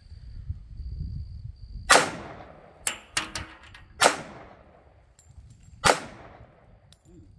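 A 1911 pistol firing .45 ACP 230-grain ball ammunition: three slow, aimed shots about two seconds apart, each with a short echoing tail. A few faint sharp clicks follow the first shot.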